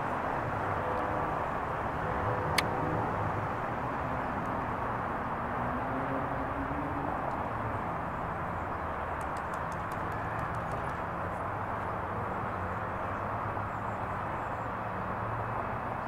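Steady outdoor urban traffic noise with a low hum, with one sharp click a couple of seconds in and a run of faint high ticks around the middle.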